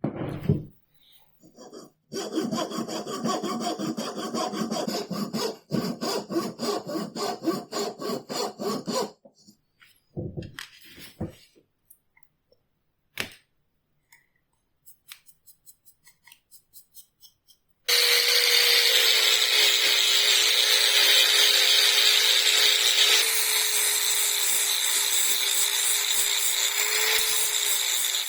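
Hand saw cutting wood in rhythmic back-and-forth strokes, about two a second, for several seconds. After a pause with a few light knocks, a loud steady power-tool noise with a motor hum runs for the last ten seconds.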